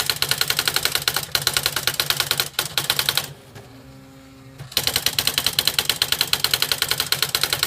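Smith Corona Display 900 electronic typewriter printing its built-in demo text on its own, with a fast, even run of type strikes at about ten a second. About halfway through, the strikes stop for a second or so and only a quieter motor hum is heard, then the rapid printing resumes.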